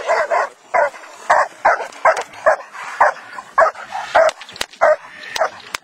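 A seven-month-old dog barking in a steady series, about two barks a second, as it is worked against a helper in defence training.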